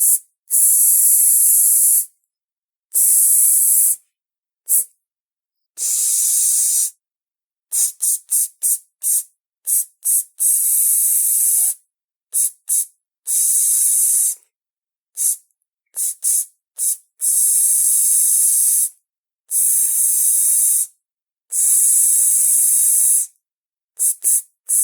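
A person imitating spray bottles with the mouth: a series of high hissing sprays, some short quick puffs and others held for one to two seconds, with dead silence between them. Near the end comes a rapid run of short puffs.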